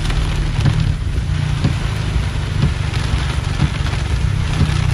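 Heavy rain beating on a car's windshield and roof, over a steady low rumble, with a soft regular thump about once a second.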